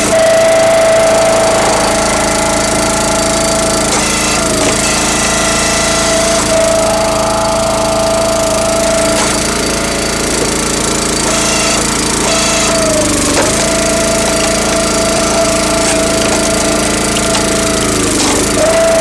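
Countyline 25-ton log splitter's small gas engine running steadily at full throttle. Its note sags and recovers a few times, most deeply about two-thirds through and near the end, as the hydraulic pump loads it while the ram pushes through poplar rounds.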